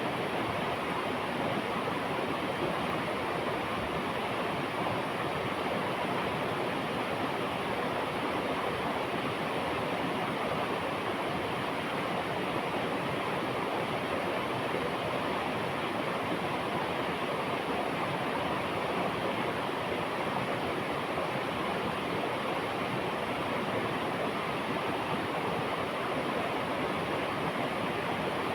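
River water rushing and splashing over rocks, a steady, unbroken rush.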